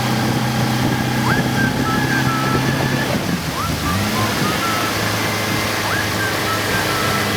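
A 2008 Yamaha 50 hp four-stroke outboard running steadily over a wash of splashing water, its engine note dipping briefly and settling again about halfway through. A short high chirping call repeats about every two and a half seconds.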